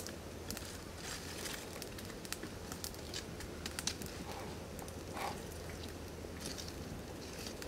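Small wood fire crackling, with scattered sharp snaps and pops over a steady low background.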